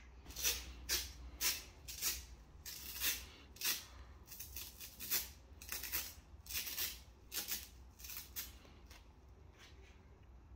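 Velcro (hook-and-loop) strap being pulled around a rolled felt puzzle mat and pressed shut, a quick series of short rasping rips and crackles, about two a second, that stop near the end.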